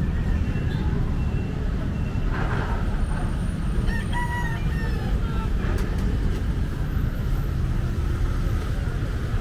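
A rooster crowing once, about four seconds in, over a steady low rumble of outdoor background noise and voices.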